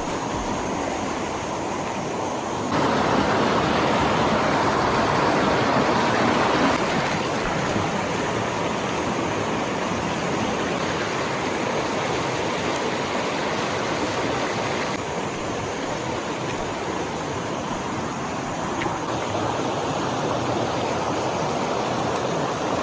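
Shallow creek water rushing over rocks and through small cascades as a steady rush. It grows louder about three seconds in and eases off a little a few seconds later.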